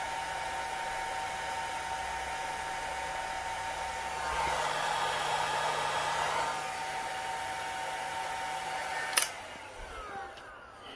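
Handheld hot-air blower running steadily, blowing hot air onto a Caterpillar coolant temperature sensor to heat it, a steady hiss with a hum in it that grows louder for a couple of seconds midway. About nine seconds in it is switched off with a click and its fan winds down with a falling whine.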